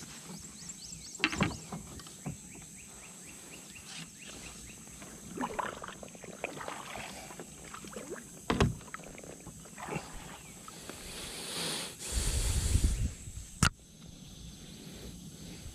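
A kayak being paddled through lily pads: a paddle dipping and pulling through the water, with scattered sharp knocks of the paddle or gear against the plastic hull and a louder water rush about three-quarters of the way through.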